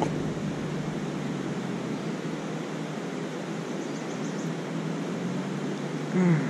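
Steady hissing outdoor background noise, with a faint steady hum under it. Near the end comes a brief, falling vocal sound from a man.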